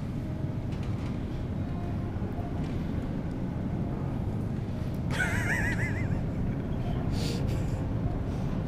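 Supermarket background noise: a steady low rumble, with one brief warbling, high-pitched squeal about five seconds in and a few light rustles after it.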